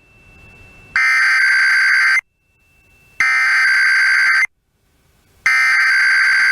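Emergency Alert System SAME header: three bursts of digital data screech, each a little over a second long with about a second between them. It is the coded header that opens a Required Weekly Test.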